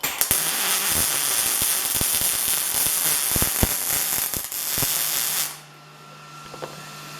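Miller Multimatic 215 welder on 110 V striking an arc and running a weld bead: a loud, steady crackling hiss with sharp spatter pops, cutting off suddenly about five and a half seconds in as the bead is finished.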